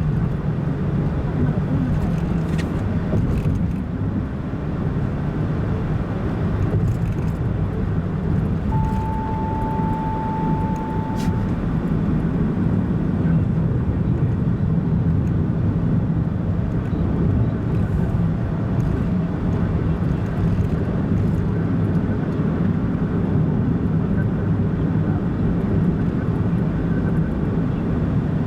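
Car driving along a road, with steady engine and road noise heard from the cabin. About nine seconds in, a steady single-pitch tone sounds for about three seconds.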